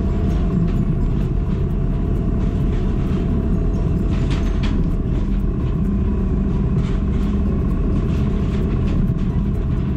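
KTM 1290 Super Adventure's V-twin engine running at a steady cruising speed on the move, under a continuous rush of wind and road noise.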